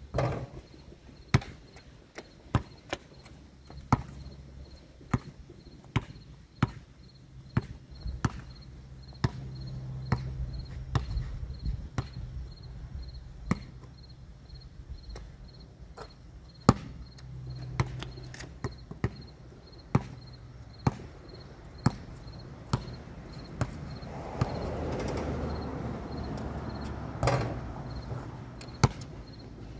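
A long series of sharp knocks, about one a second at uneven spacing, over a steady pulsing chirp of insects.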